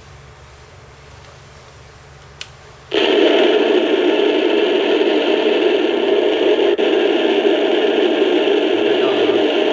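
Sound effects from the onboard sound unit of a 1/16-scale M60 RC tank, played through its small speaker: a quiet low engine hum, a click about two and a half seconds in, then a loud, steady, thin-sounding noise that starts suddenly about three seconds in and holds.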